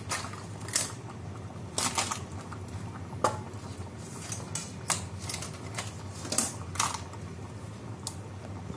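Hard-shelled raw crab pieces dropped by hand into a clay pot of simmering curry gravy, clicking and knocking against each other and the pot: about ten sharp clicks at uneven intervals over a steady low hum.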